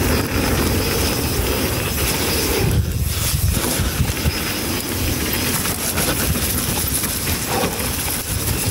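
Mountain bike ride noise on a muddy trail: a steady rush of wind and rolling tyres, heaviest in the low end, while the rider pedals hard to get over a feature.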